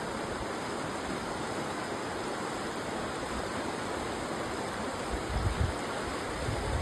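Muddy floodwater rushing down a swollen river: a steady rushing noise. Wind buffets the microphone briefly about five seconds in.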